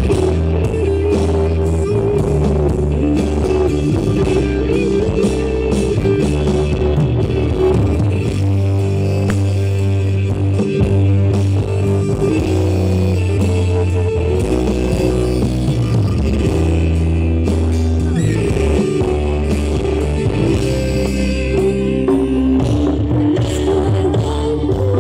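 Music played loud through a tall stack of large speaker cabinets: heavy sustained bass notes shifting every second or two under a melody line, running without a break.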